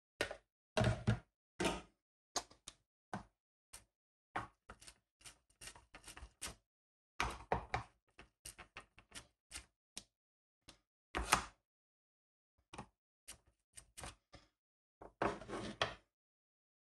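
Plastic hand burger press, spoon and plastic mixing bowl knocking and clicking against a plastic cutting board while minced wild boar is pressed into patties. An irregular string of short knocks and scrapes, with a few louder clusters.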